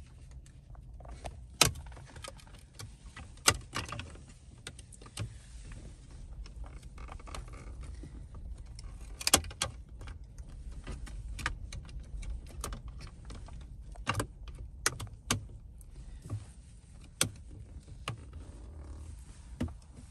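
Carbon fiber instrument cluster cover clicking and tapping against the hard plastic dash trim as it is pressed and worked into place. Sharp clicks come scattered throughout, the loudest about two, three and a half and nine seconds in, over a low steady rumble.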